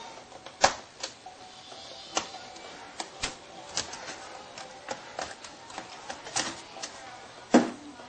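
Irregular plastic clicks and taps from a Sony Vaio laptop keyboard being handled and worked loose from its frame, with a sharp snap about a second in and another near the end as the keyboard comes free.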